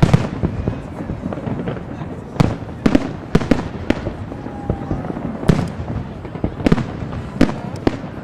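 Fireworks display: aerial shells bursting with sharp bangs at irregular intervals, sometimes two or three within a second.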